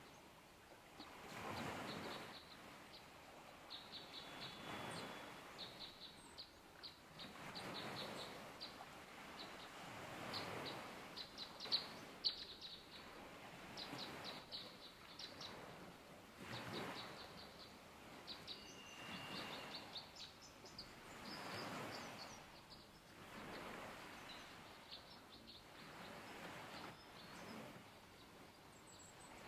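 Small songbirds chirping in quick runs of high, short chips, with a couple of brief whistled notes, over a faint rushing background that swells and fades every few seconds.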